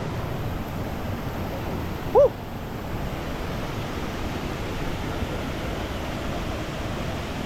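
Steady rush of water from a waterfall. About two seconds in there is one short call that rises and falls in pitch.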